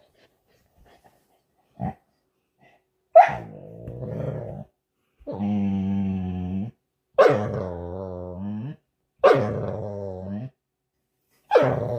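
A dog making a series of drawn-out vocalizations, about five in a row roughly two seconds apart. Each starts sharply and then holds with a wavering pitch: the dog's playful 'talking' to ask to play.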